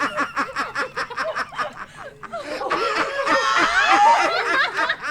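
A group of young people laughing: quick, rapid pulses of giggling at first, then several voices laughing and squealing over one another from about halfway in.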